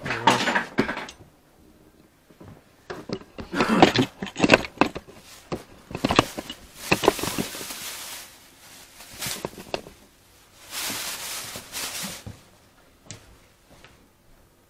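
Clatter and knocks of objects being handled in a small room, with two short spells of hiss.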